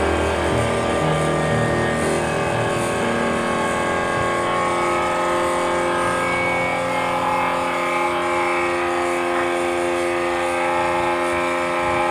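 Background electronic music of held, droning synth tones.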